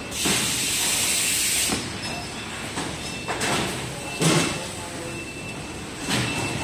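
Factory-hall machinery running: automated roller conveyors and handling equipment hum steadily, with a loud hiss for the first second and a half or so, then several shorter clattering bursts.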